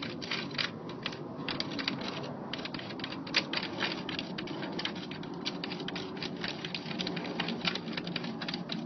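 Small plastic utensil stirring Popin' Cookin' candy powder and water in a plastic tray, making quick irregular clicks and scrapes, several a second. A steady low hum runs underneath.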